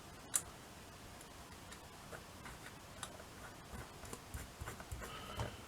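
Faint, irregular small clicks and taps of metal parts being handled as a little nut is fitted onto a clock's torsion pendulum, with one sharper click about a third of a second in.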